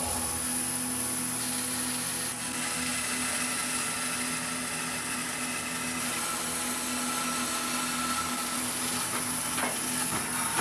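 Laguna 14-12 bandsaw running and resawing a walnut log held in a plywood jig: a steady motor hum with the blade cutting through the wood.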